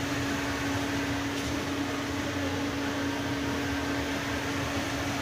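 Steady hum of a running machine: an even drone with one constant tone held throughout.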